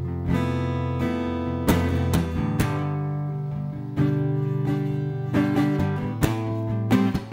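Acoustic guitar strumming chords, each stroke left to ring out.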